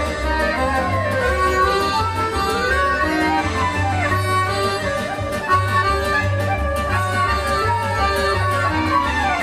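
Klezmer ensemble playing live: accordion, violin, clarinet, double bass and guitar. The melody slides up and down in long glides over a steady bass line.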